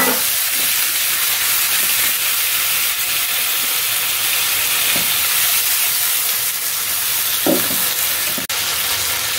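Marinated chicken pieces sizzling steadily in a hot oiled wok over high heat, with a wooden spatula stirring them, giving a couple of brief knocks against the wok.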